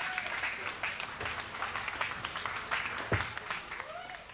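Audience clapping and cheering after a song at a live rock gig, heard on an audience tape recording; it grows gradually fainter toward the end.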